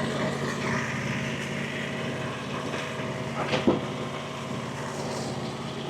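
Engine of a Frontier OS35 hydraulic sawmill running steadily at an even speed, with one brief sharp sound about three and a half seconds in.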